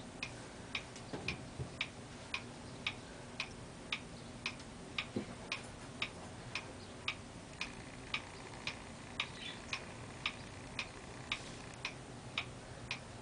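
Pendulum wall clock ticking steadily, about two ticks a second.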